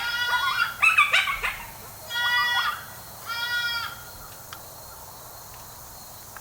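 Coyote predator calling: fawn distress bleats from an electronic caller mixed with coyote pup distress whimpers blown on a diaphragm mouth call. High, wavering, gliding cries in the first second and a half, then two short, steady, nasal bleats about a second apart.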